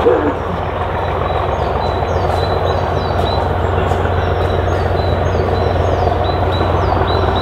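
Distant diesel locomotive engine running steadily as a train approaches unseen, growing slightly louder, with small birds chirping repeatedly.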